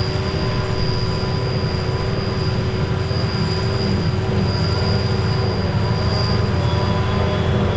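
John Deere 6950 self-propelled forage harvester working, chopping grass and blowing it into the trailer. Its engine and cutterhead give a steady heavy drone with a thin, high, constant whine, mixed with the New Holland tractor's engine running alongside.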